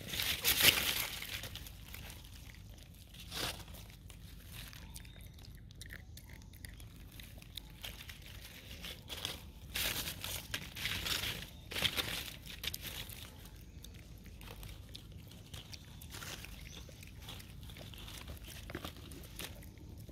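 Dry fallen leaves rustling and crackling in irregular bursts, strongest in the first couple of seconds and again around ten to twelve seconds in.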